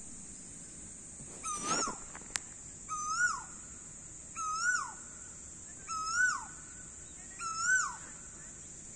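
A bird repeating a short whistled call about every second and a half, each a note that rises briefly and then drops away, five times. Under it runs a steady high-pitched drone.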